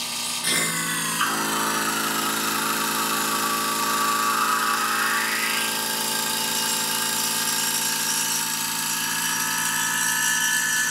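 Refrigerant vacuum pump running steadily with a hum of several even tones, pulling a vacuum on a car's A/C system through the gauge manifold. About a second in, a rushing hiss of air being drawn out comes in, rises in pitch and dies away a little past the middle.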